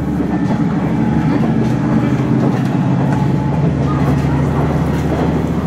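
Steady running noise inside a KiHa 110-series diesel railcar under way: a continuous low diesel engine drone over rail and wheel noise.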